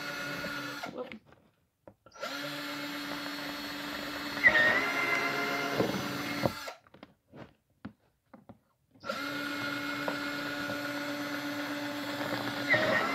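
Power drill with a regular drill bit boring holes through the wall of a clear plastic storage bin, drilled from the inside out. The motor runs three times: briefly at the start, then twice for several seconds, and each long run turns louder and rougher partway through.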